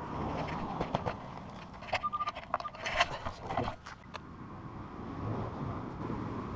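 Scraping and clicking of soil and a coin being dug out and handled while recovering a metal-detecting target, with a short electronic detector beep about two seconds in. After about four seconds the sounds give way to a low steady rumble.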